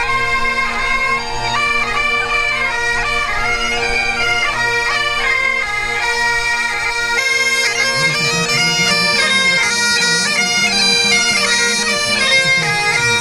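Scottish Highland bagpipes playing a marching tune: the melody moves quickly from note to note over steady, unbroken drones.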